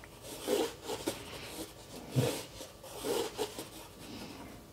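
Pencil drawing on heavy Arches watercolour paper: a few short, soft scratching strokes at irregular intervals.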